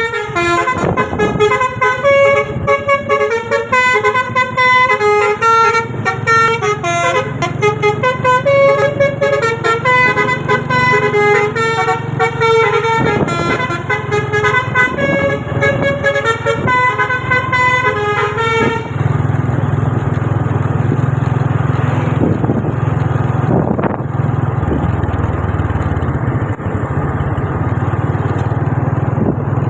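A bus's Basuri telolet horn playing a fast, bright melody of short stepped notes, which stops about nineteen seconds in. After that a steady low drone from the bus's running engine remains.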